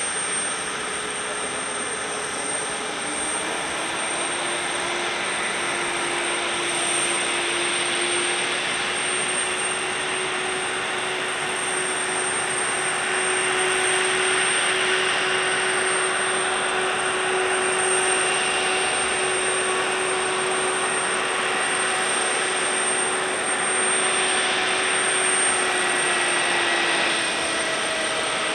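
Airbus A320's twin jet engines at taxi power: a steady rushing whine with a hum holding one pitch and a thin high whistle above it.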